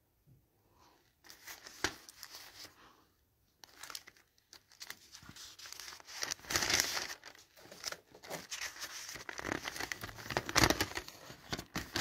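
Paper rustling and crinkling as sheets and an instruction booklet are handled, starting about a second in, with scattered sharp snaps.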